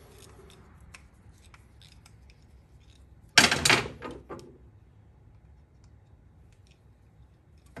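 A short hiss from an aerosol can of WD-40 sprayed into a small carburetor's passages, lasting under a second a little before halfway. Light clicks and taps of small carburetor parts being handled around it.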